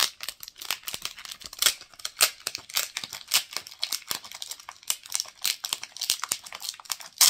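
Crinkly blind-pack wrapping of an acrylic stand being opened, with irregular crackling and tearing throughout.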